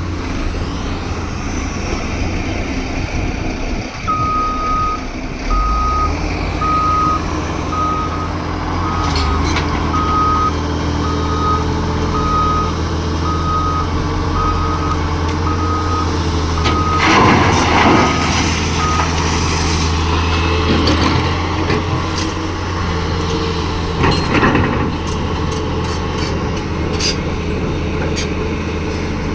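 Diesel dump truck running, its reversing alarm beeping steadily at about one beep a second as it backs up, then falling silent. Near the end of the beeping comes a loud rush of hiss lasting about a second, with a smaller one later, over the steady engine.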